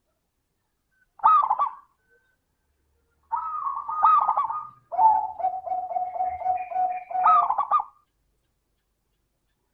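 Zebra dove (perkutut) cooing: a short call about a second in, then a longer song from about three seconds in that ends in a fast, even run of lower rolling coos, stopping near the end.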